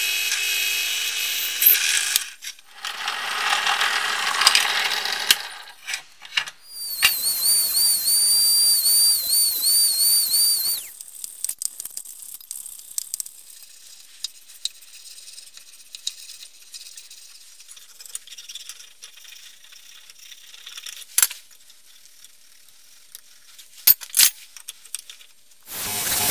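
Drill press boring through a brass knife guard, its motor stopping about two seconds in. A loud, wavering high squeal follows for a few seconds, then quiet hand filing of the slot in the guard with a few sharp clicks, and a belt grinder starts up right at the end.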